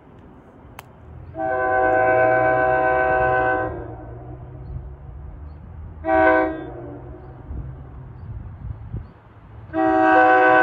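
Horn of an approaching train, several notes sounding together: one long blast, a short blast, then another long blast starting near the end, the pattern sounded for a grade crossing. A low rumble of the oncoming train runs under it.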